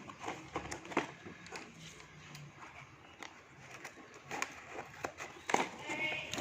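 Packaging of a soldering kit being handled and opened: soft rustling with irregular clicks and taps, busiest near the end.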